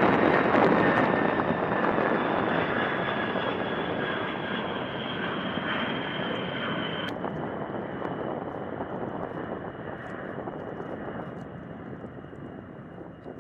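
B-52 bomber flying past with its eight jet engines running: a loud jet rush with a high whine over it, fading steadily as the aircraft draws away.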